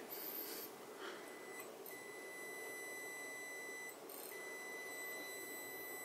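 Steady high-pitched tone from an amplifier test rig: a Mackie SRM450 v2 amplifier driven continuously with a 1 kHz sine at full power into a 100-watt load resistor. The tone cuts out briefly twice, just before two seconds in and again around four seconds, each time the test signal drops out.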